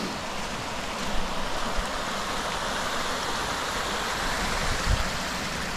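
Rainwater runoff rushing steadily down a hillside ditch. A couple of brief low thumps come about two and five seconds in.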